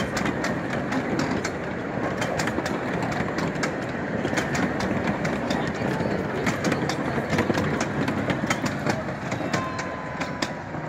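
Cars of a miniature ride-on railway rolling past on steel wheels: a steady rumble with a quick run of sharp clicks as the wheels cross the rail joints. It fades a little near the end as the last car goes by.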